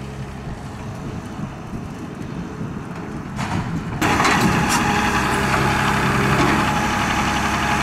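Rottne F13-C forwarder's diesel engine running steadily while its hydraulic crane grabs and lifts logs. The sound gets louder and fuller about four seconds in.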